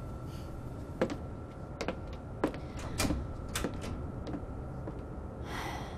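Hard-soled shoes stepping on a floor: a run of sharp steps roughly half a second apart, with a soft rushing swell near the end.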